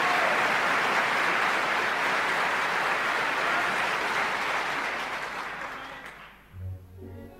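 Audience applause, a dense steady clapping that dies away about six seconds in. Soft low notes of music begin just after it fades.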